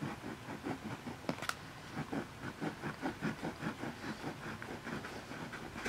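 A blade cutting back and forth through the hard candy shell of a gumball: a run of short scraping strokes, about three or four a second, with a few sharp clicks early on.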